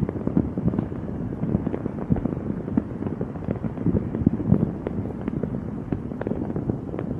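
Fireworks going off in a dense, unbroken barrage of bangs and crackles, heavy in low booms.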